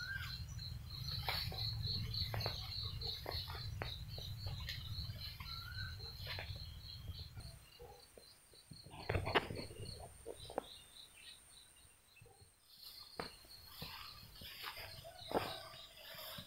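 Outdoor ambience with a high chirping call repeated several times a second, over scattered clicks and rustles. A low rumble stops about halfway through, and a louder clatter comes about nine seconds in.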